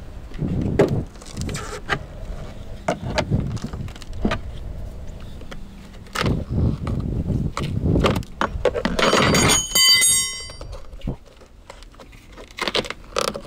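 Hand-work noise at a truck's door sill: clicks, knocks and rubs as plastic sill trim and old rubber weatherstripping are pried and pulled by hand with a metal trim tool. About nine seconds in there is a brief metallic ringing lasting around a second.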